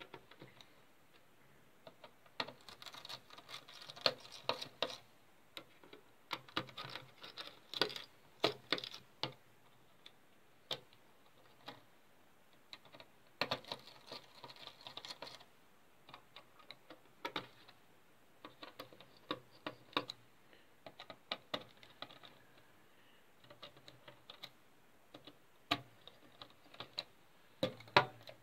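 A screwdriver clicking and scraping on the small screws of a laptop's CPU heatsink and fan assembly, in irregular bursts of ticks and light metallic rattles. The heatsink clacks as it is taken in hand near the end.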